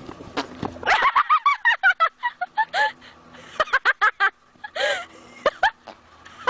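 A person laughing hard in rapid high-pitched bursts, starting about a second in, with short breathy pauses between the runs of laughter.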